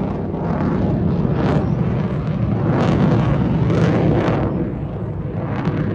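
Jet fighter flying overhead in an aerobatic display: a loud, rough jet engine roar with a heavy low rumble, swelling and easing several times as the aircraft manoeuvres.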